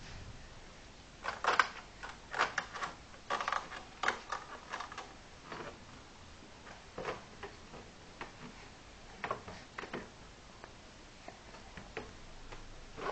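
Irregular light clicks and taps from a small child handling things at a desk, bunched in quick runs in the first few seconds, then scattered.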